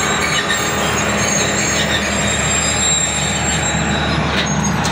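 Passenger train coaches rolling slowly along the rails, a steady rumble of wheels on track with a faint high wheel squeal and a low steady hum underneath.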